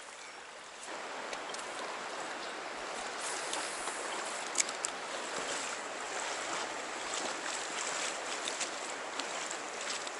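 Trout stream water running, a steady rushing hiss that gets louder about a second in, with scattered small clicks.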